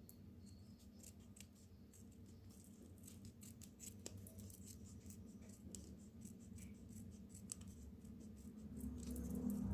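Scissors snipping and light clicks of hands handling plastic film and ribbon while trimming a kite hummer, over a low steady hum that grows louder near the end.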